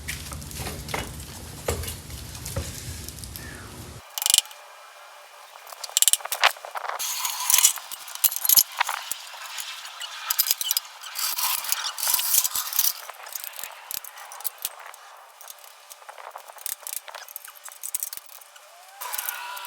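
Hand tools working on a Type 4 VW engine during teardown. A low ratchet-like rattle runs for the first four seconds and stops abruptly, then come scattered metallic clicks and clinks of wrenches and loose engine parts.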